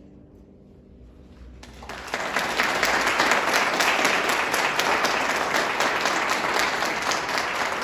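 A brief hush, then audience applause breaks out about two seconds in and carries on steadily.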